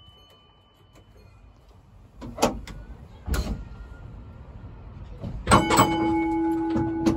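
W-class tram: two knocks, then about five and a half seconds in a steady hum starts up, with a few more clunks on top of it.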